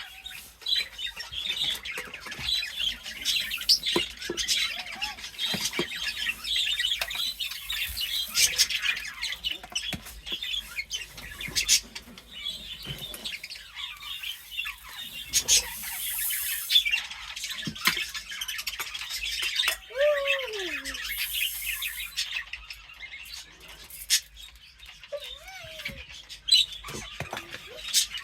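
A flock of caged birds chirping and chattering without pause, with scattered clicks and rustles. Two short falling cries stand out, about twenty and twenty-five seconds in.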